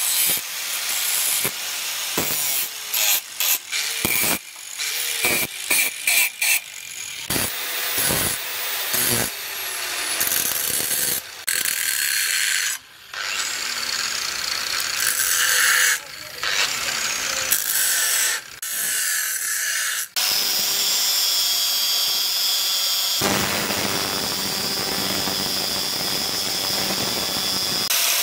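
Electric angle grinder running at speed, its abrasive disc grinding and sanding a steel knife blade, a hissing, high-pitched grind. The sound breaks off and starts again many times in the first half, and turns fuller and steadier for the last few seconds.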